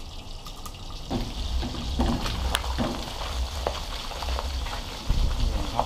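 Catfish pieces deep-frying in a wok of hot oil: a steady sizzle with scattered crackles and pops, getting louder about a second in, with a sharper knock about five seconds in.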